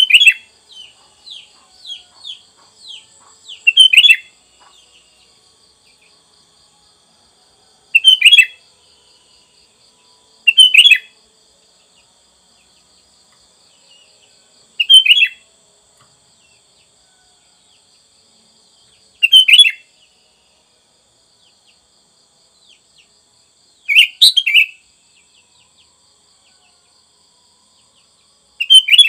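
Sooty-headed bulbul singing short, loud, liquid phrases about every four to five seconds, eight in all, with a few softer chirps in the first seconds. A faint steady high trill runs underneath.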